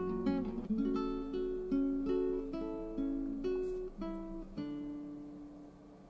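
Soft instrumental background music of plucked strings, in the manner of an acoustic guitar, playing one note after another. The last note rings out and the music fades away near the end.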